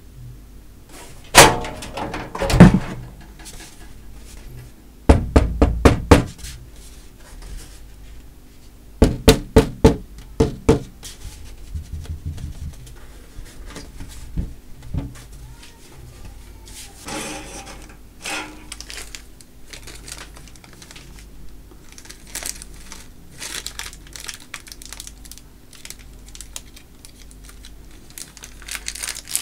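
Parts of a Fantech Aero CG80 steel computer case being handled: sharp knocks and clatter of metal pieces, with quick runs of about six clicks around five and nine seconds in, then lighter taps and some rustling near the end.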